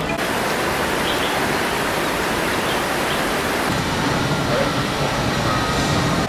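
Steady rushing of falling water from a garden pond's fountain. About two-thirds through it turns duller and lower.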